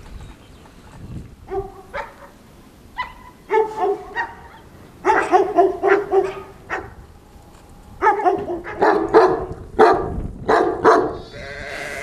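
A dog barking: a few single barks, then two quick runs of barks.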